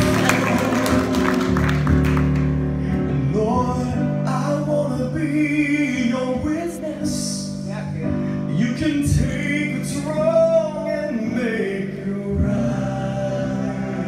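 Live gospel music: men singing into microphones over sustained keyboard chords, with a solo male voice carrying the sung line from about three seconds in.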